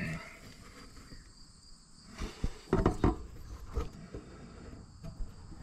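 Crickets chirping steadily in the background, with a cluster of knocks and rustles a little over two seconds in.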